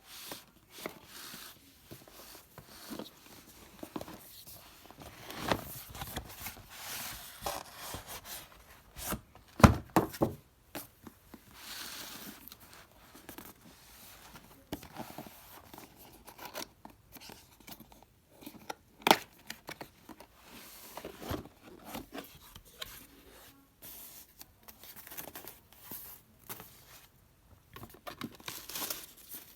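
Cardboard box and packaging being opened by hand: tape tearing, cardboard scraping and plastic wrap crinkling. A few sharper knocks stand out, the loudest about ten seconds in and again about nineteen seconds in.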